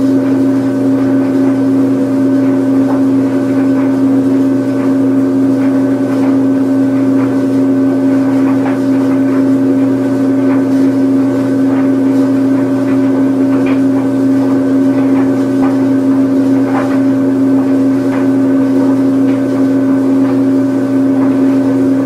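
Washing machine on its spin cycle: a steady, unchanging hum with a strong low tone and a few faint clicks.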